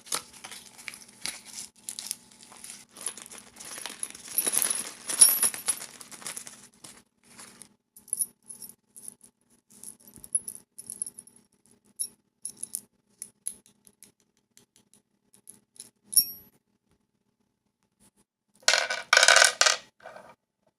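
Small metal skateboard hardware clinking and rattling as it is handled: many quick light clicks, dense for the first several seconds and then sparser. Near the end comes a louder scraping rustle lasting about a second and a half.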